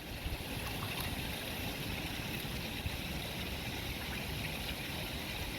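Steady rush of running water under the bridge, with wind buffeting the microphone in low, uneven gusts.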